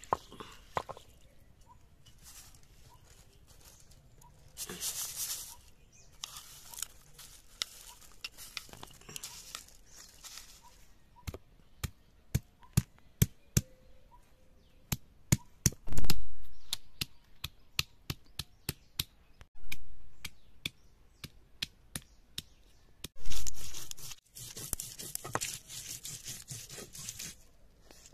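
Garlic cloves with cumin and coriander seeds being crushed on a wet stone slab with a hand-held grinding stone (sil-batta). Stretches of gritty stone-on-stone rubbing come at the start and near the end, with a run of sharp knocks in the middle as the seeds are pounded; a few of the knocks are much louder than the rest.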